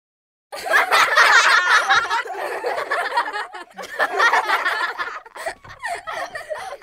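Laughter, loud and lively, starting suddenly about half a second in after a brief silence and running on in waves.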